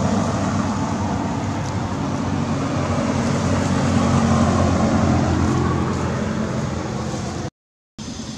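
A motor vehicle's engine running with a low, steady hum. It grows louder to about four seconds in and then fades, as if passing by. The sound cuts out briefly near the end.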